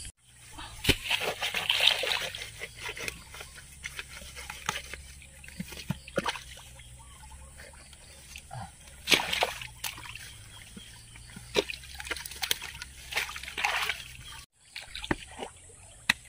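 Hands groping and splashing in shallow muddy ditch water while feeling for fish, with irregular sloshes and splashes, a few of them louder.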